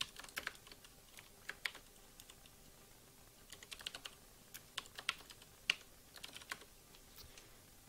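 Computer keyboard being typed on: irregular runs of light key clicks with short pauses between them.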